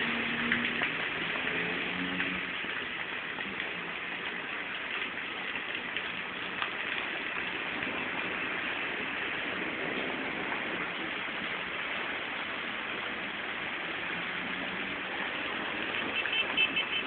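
Heavy rain falling steadily. A vehicle engine's low hum fades out in the first couple of seconds.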